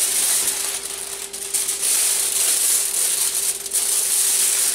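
Aluminium foil crinkling in fits and starts as it is folded by hand around a freshly baked loaf of sourdough bread.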